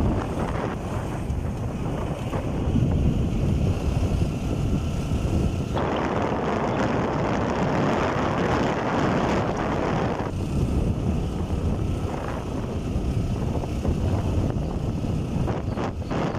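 Wind rushing over the microphone of a moving motorcycle, with road and engine noise underneath. The rush swells and grows brighter for about four seconds in the middle.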